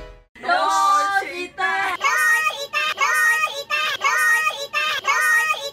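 Edited-in meme audio: a child's high voice singing a short phrase that repeats over and over as a loop.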